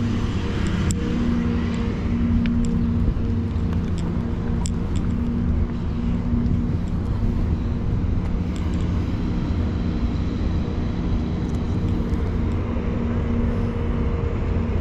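A steady engine drone with a low rumble underneath.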